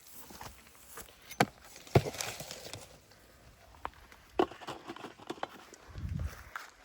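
Rustling and crackling in forest-floor leaf litter as it is searched by hand or underfoot, with several sharp twig-like snaps, the loudest about two seconds in and again past four seconds.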